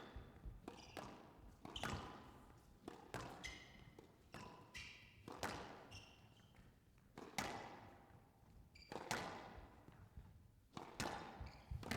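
Squash rally: the hard rubber ball struck by rackets and smacking off the court walls about once a second, each hit echoing in the enclosed court, with short high squeaks of court shoes on the floor between the hits.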